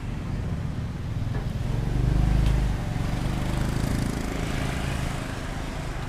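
Small motorcycle engine idling with a steady low rumble, growing louder for a moment about two seconds in, over street traffic.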